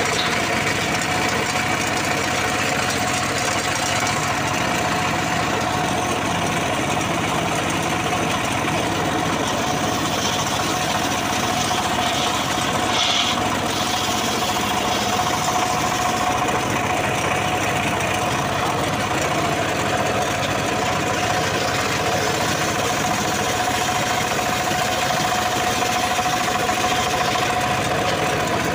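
Homemade engine-driven circular sawmill ripping a large log lengthwise into boards: the engine runs under load while the circular blade cuts steadily through the wood, with a steady whine over the sawing noise.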